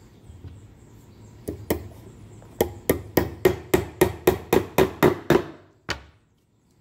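Hammer driving a nail into a pine board: two light taps, then a steady run of about eleven blows at roughly four a second, and one last blow a little later.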